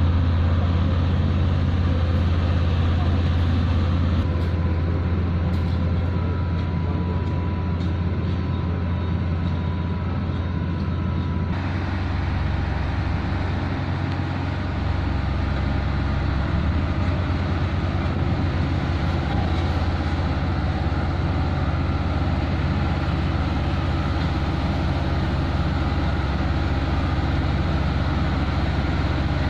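Heavy diesel engine of road-paving machinery running steadily, a low hum whose sound shifts slightly about twelve seconds in.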